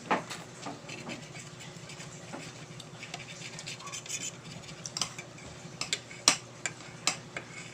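Spoon and fork scraping and clicking against a plate of noodles during eating, with scattered clinks and a sharper one about six seconds in.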